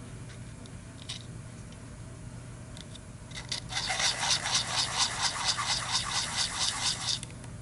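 A small machined brass die rubbed back and forth by hand on abrasive paper, sanding a face. After a few faint clicks, fast even scraping strokes, about seven a second, start about three seconds in and stop shortly before the end.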